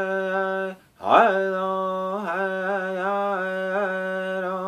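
Male voice singing a round dance song in long held notes at a steady pitch with slight wavers, with a short breath break just before a second in.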